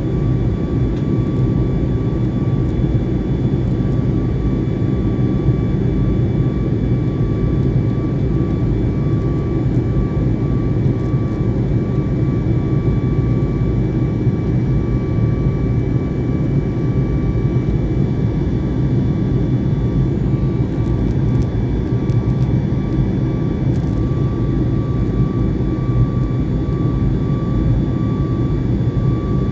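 Jetliner cabin noise in flight, heard from a window seat: a steady roar of jet engines and airflow with a thin, steady whine above the low rumble.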